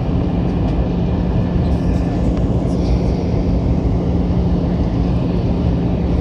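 Airbus A320 engine and airflow noise heard inside the cabin during the descent to land: a dense, even rush with a steady low hum running under it.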